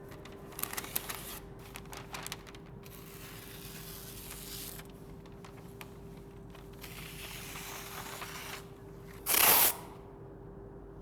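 Paint-shop sounds: a steady hum with a few light clicks, then two stretches of soft hissing from a spray gun and a short loud blast of compressed air about nine seconds in.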